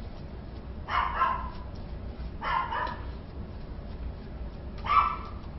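A dog barking three times, with about a second and a half to two and a half seconds between barks.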